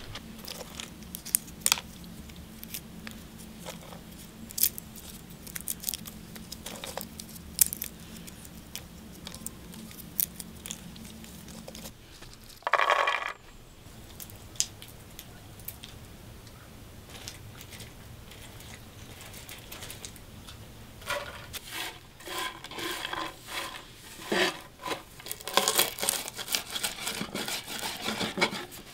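Walnut shells being broken apart by hand to free the kernels: sharp cracks and snaps every second or two over a low steady hum. Later a denser run of rattling and scraping as the shelled walnut kernels are pushed around a clay bowl.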